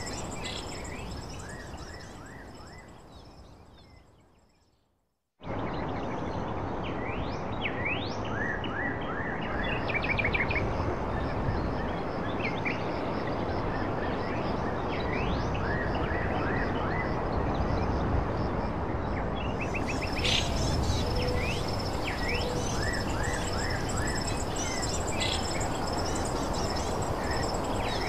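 Outdoor ambience: a steady background noise with small birds chirping, many short quick chirps, and a thin high steady tone above them. The sound fades out to silence about four seconds in and cuts back in abruptly just after five seconds.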